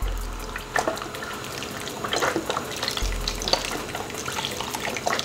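Chicken stock pouring from a carton into a pot of browned sausage and cauliflower, a steady splashing of liquid with irregular small pops.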